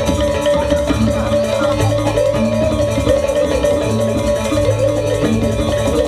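Music accompanying a Janger theatre horror scene: a slow repeating low figure under a steady held note, with no voices.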